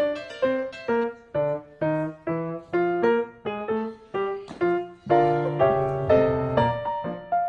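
Background music: a light piano or electric-piano tune played in separate notes, about two a second, each fading quickly, with fuller chords about five seconds in.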